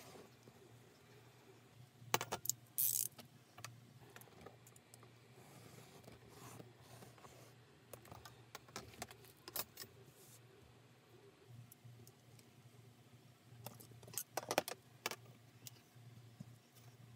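Steel rulers being handled and set down on leather and a cutting mat: scattered sharp metallic clicks and clinks, in a cluster about two seconds in with a short scrape, and again near the end.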